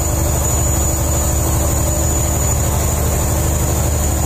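Fishing boat's engine running steadily, a low, fast, even throb.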